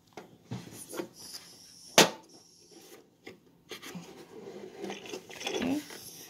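Plastic toy-ship game pieces being handled and fitted together: a few sharp clicks, the loudest about two seconds in, then plastic rubbing and scraping on plastic as a mast is worked into its socket on the deck.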